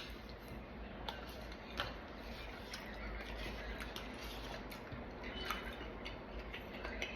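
Someone eating fruit: irregular chewing with small clicks and crunches scattered through it.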